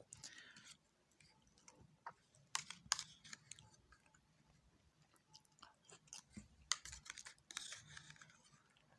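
Faint chewing and eating sounds as someone eats yogurt mixed with garlic, with scattered small clicks, the sharpest about two and a half, three, and just under seven seconds in.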